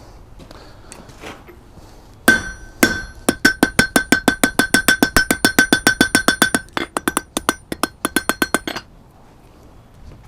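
Hand hammer striking hot steel on an anvil, drawing out a leaf's stem over the horn: two single blows, then a fast run of light, evenly spaced strikes, several a second, each with a high ring from the anvil. The run pauses briefly and stops before the end.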